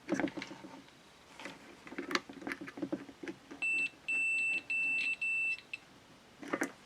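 Clicks and small knocks of handling on a workbench. From about halfway through, a series of about five high, single-tone electronic beeps of uneven length sounds, some short and some held about half a second.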